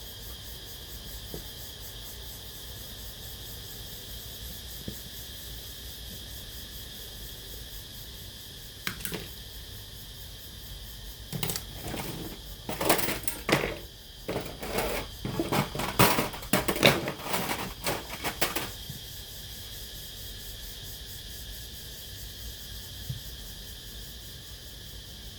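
Irregular clicks, knocks and clatter of a cassette player's plastic case and parts being handled during repair, bunched from about a third of the way in to about three quarters through, over a steady high hiss.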